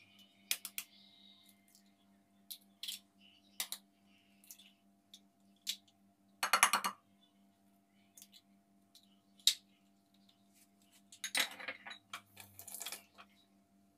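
Eggs being cracked on the rim of a glass bowl and the shells set down on a plate: a series of sharp taps and clinks, with a louder rattling crack about six and a half seconds in and another cluster near the end. A faint steady hum runs underneath.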